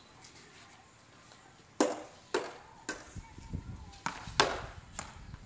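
A string of sharp clacks from a game of cricket on a concrete roof: a hard ball and a plastic bat striking the concrete and each other, about six in all. The first, about two seconds in, and one about four and a half seconds in are the loudest.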